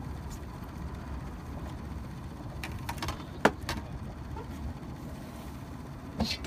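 Handling noise on a fishing boat as a fish is netted over the side: a handful of knocks and clicks a few seconds in, the sharpest about halfway, over a steady low rumble.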